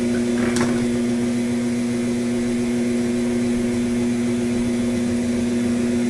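West Bend stand mixer's electric motor running with a steady hum, its beaters turning through thick banana bread batter in a stainless steel bowl.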